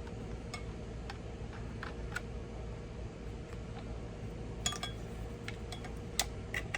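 Scattered light metallic clicks and clinks of small parts being handled: a cutoff wheel and its flange nut being fitted onto an angle grinder's spindle, over a steady low hum.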